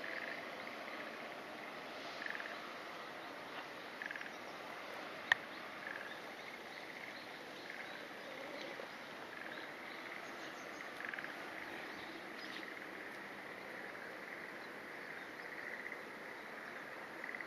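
Steady outdoor ambience with short animal calls repeating every second or two, and a single sharp click about five seconds in.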